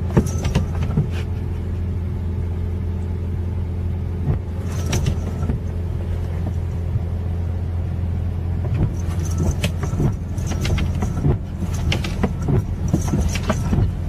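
A steady low hum or rumble, with scattered clicks and knocks, more of them near the end.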